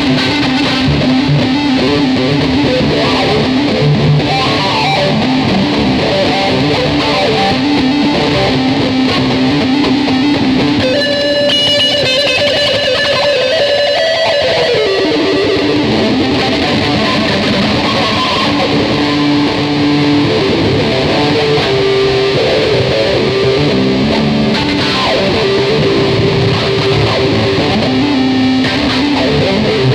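Ibanez electric guitar played continuously in a loose jam. Around the middle, high ringing notes give way to a note sliding down in pitch.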